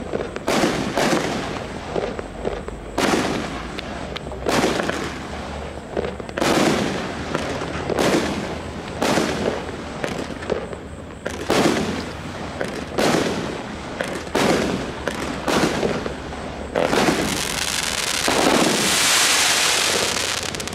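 A 50-shot, 1-inch-calibre firework cake firing: sharp shots one after another, roughly one or two a second. Near the end the separate reports give way to a continuous hiss lasting a few seconds.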